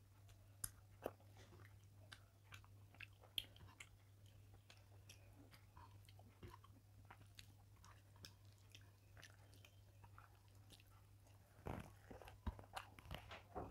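Faint scattered clicks of fingers working rice and fish on a plate, close to a clip-on microphone, over a low steady hum. About twelve seconds in, louder wet chewing as a handful of rice is eaten.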